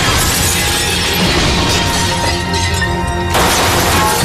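A glass door shattering as a man crashes through it, shards spraying, over a dramatic music score; a second burst of breaking glass comes about three and a half seconds in.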